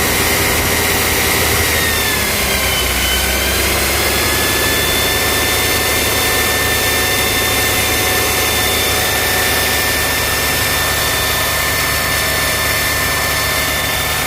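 BMW N20 turbocharged four-cylinder engine running with a thin high whistle over the engine noise. The whistle dips in pitch about two seconds in, then settles to a steady tone. It is the whistle that the owner traces to the oil pump chain drive.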